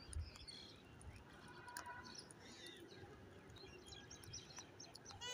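Quiet outdoor background with faint, scattered bird chirps.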